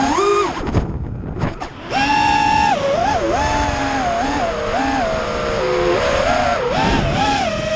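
FPV racing quadcopter's motors and propellers whining, recorded onboard, with the pitch jumping up and down with the throttle. About a second in the whine nearly cuts out as the throttle is chopped, then comes back about a second later and keeps wavering through quick throttle changes.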